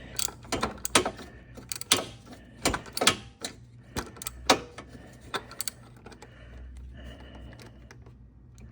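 Irregular sharp metal clicks and clanks of a wrench working the old oil filter loose on the engine, several in quick succession, thinning out after about six seconds.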